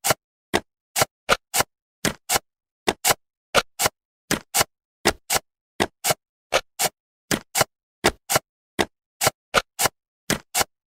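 Short, sharp click sound effects, about three a second and some in close pairs, with dead silence between them: cartoon jigsaw pieces snapping into place as the puzzle is assembled.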